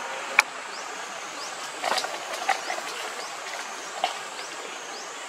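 Forest ambience: a steady hiss with faint high chirps repeating about twice a second. A sharp click comes about half a second in, and a few short, soft sounds follow around two and four seconds in.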